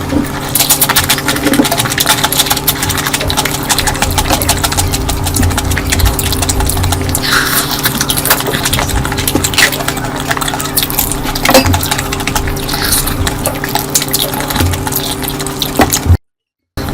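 Close-miked eating sounds: wet chewing and mixing of curry, with many small clicks and clinks of dishes, over a steady low hum. The sound cuts out for about half a second near the end.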